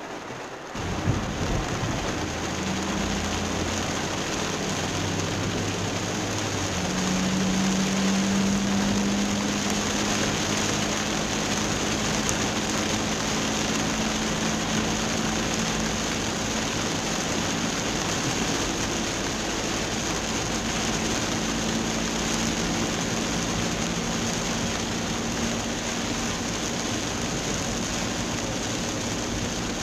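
Heavy rain drumming on a car's roof and windshield, heard from inside the car, with tyres hissing on the flooded road. About a second in the sound swells, and the engine's hum climbs in pitch for several seconds as the car pulls away from a standstill, then holds steady at cruising speed.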